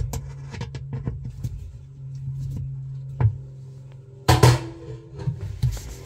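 Pliers clicking and knocking against a twin-tub washing machine's plastic pulsator while working at its centre screw, with one louder clatter after about four seconds, over a steady low hum.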